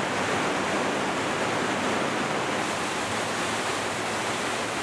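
Steady rushing of a rocky stream, water pouring over and between boulders in small rapids.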